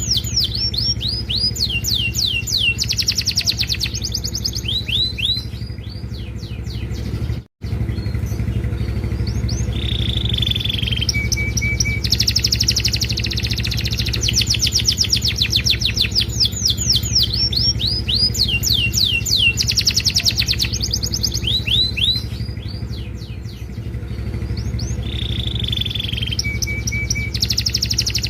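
Domestic canary singing a long, vigorous song of rapid trills and runs of repeated downward-sweeping notes, broken by a brief cut about a quarter of the way in. A steady low hum runs underneath.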